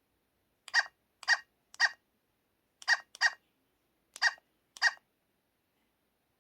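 A dog-barking sound effect played from the LG-KT1000 phone's speaker: seven short barks, in a group of three, then two, then two.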